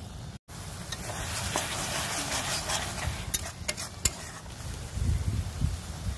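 Mushroom masala curry sizzling in a black iron kadai while a metal spatula stirs it, with a few sharp clicks of the spatula against the pan about three to four seconds in. A low rumble follows near the end.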